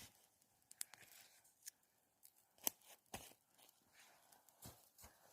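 Faint campfire crackling: scattered sharp pops and clicks, about one a second, with near silence between them.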